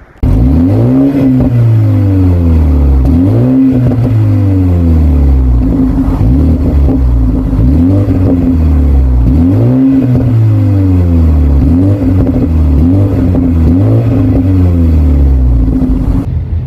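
A 2022 BMW 330i's B46 2.0-litre twin-turbo four-cylinder is revved repeatedly from idle during an exhaust note test. Each rev climbs quickly and falls away slowly, every couple of seconds. The sound cuts in suddenly at the start and stops shortly before the end.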